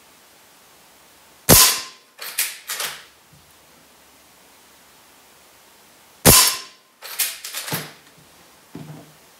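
Two shots from a CO2-powered lever-action BB rifle (Umarex Legends Cowboy Rifle), each a sharp crack. Each is followed within a second by a quick run of metallic clacks as the under-lever is worked to eject the empty cartridge shell and feed the next one. A faint click comes near the end.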